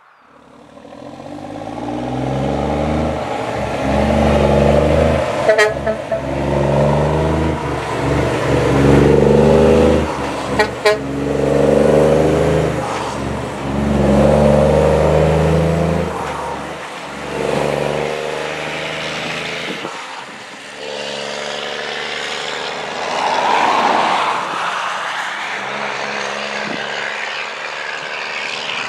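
Freightliner Argosy's 620 Cummins diesel through an 8-inch straight-pipe single stack, loud and working up through the gears as the truck pulls away. The note swells and drops back at each shift, with two brief sharp cracks near the first shifts. It thins out over the last several seconds as the truck moves off.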